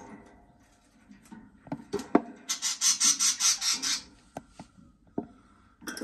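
A budgerigar scratching at its wooden nest box: a few sharp taps, then a quick run of about ten rasping strokes lasting a second and a half, then more scattered taps.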